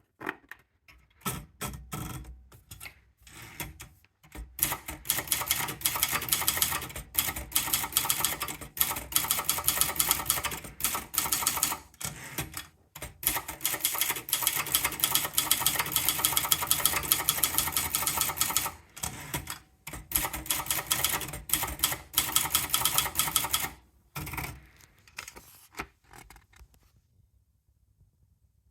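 Sperry Remington typewriter being typed on: rapid runs of key strikes with brief pauses between runs, slowing and stopping near the end.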